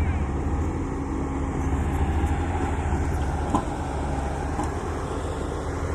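Excavator's diesel engine running steadily with a low drone, with one short knock about halfway through.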